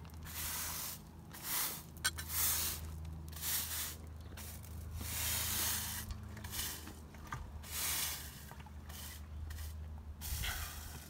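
Garden plants being cut back by hand: a series of short rustling, brushing strokes of leaves and stems, roughly one a second, with an occasional sharp snip, over a faint steady low hum.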